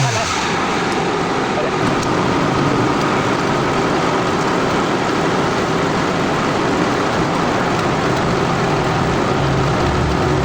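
Honda Civic (Rebirth) engine running steadily at idle, after a brief rev dies away right at the start.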